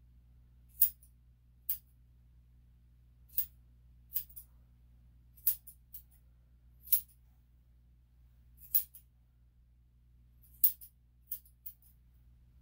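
Grooming scissors snipping a dog's coat in short, sharp snips, about one a second at irregular intervals and sometimes two in quick succession.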